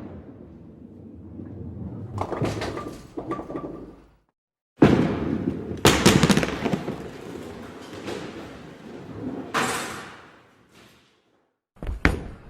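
A series of separate bowling sound effects: a bowling ball rumbling down a lane and crashing into the pins, which clatter and scatter. One clip's crash comes about two to three seconds in; after a brief silence a second clip rolls and crashes loudly about six seconds in, with more clatter near ten seconds, and another clip begins near the end.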